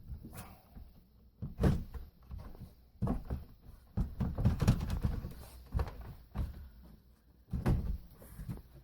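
Irregular knocks and thumps of a new window unit being bumped and shifted as it is worked back out of its rough opening, its frame catching on blocking that was not cut back enough.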